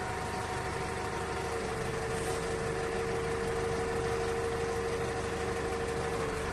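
Large diesel forklift's engine running steadily as it creeps forward carrying a heavy load. A steady high whine comes in about a second and a half in and stops near the end.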